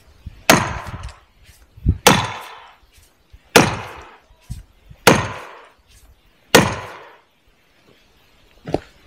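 Five heavy blows driving steel wedges into a felled log, about one and a half seconds apart, each strike ringing briefly with a metallic tone.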